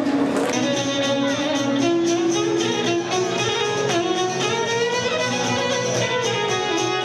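Violin and a strummed long-necked lute playing an instrumental folk passage, the fiddle carrying the melody over a steady strummed rhythm.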